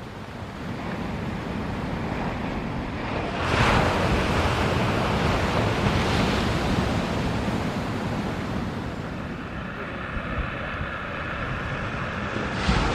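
Steady rushing noise of wind on the microphone, with louder gusts about three and a half seconds in and again near the end.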